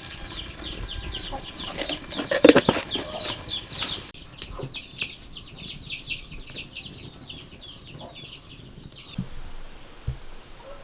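Birds chirping: a dense, rapid run of short, high, falling peeps that stops near the end. A few sharp clatters sound in the first few seconds.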